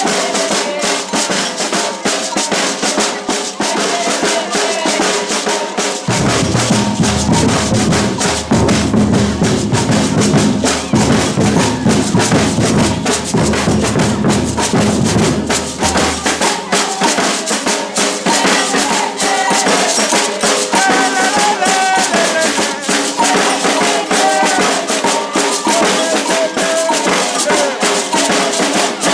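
Batucada percussion ensemble playing a driving rhythm on drums. The deep bass drums are strong from about six seconds in to about sixteen seconds in.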